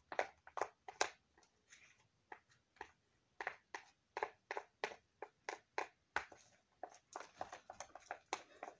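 White plastic spoon stirring glue and shaving cream in the plastic bottom of a crayon box: a faint, irregular string of short scrapes and clicks against the plastic, about three a second.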